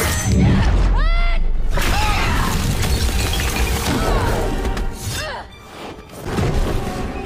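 Dramatic action score mixed with fight sound effects: several sharp hits and a shattering crash. The sound drops off briefly about five and a half seconds in.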